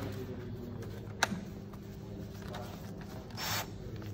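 Cordless drill being handled: one sharp click about a second in and a short hiss near the end, over a steady low hum.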